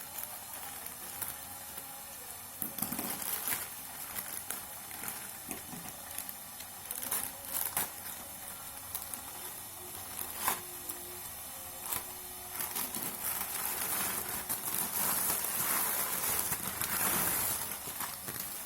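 Packaging being handled and opened: crinkling and rustling with scattered clicks and taps, a longer, louder spell of rustling near the end.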